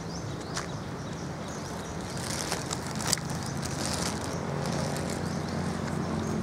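Outdoor ambience: a steady low engine hum, with short high bird chirps and a few light clicks over it.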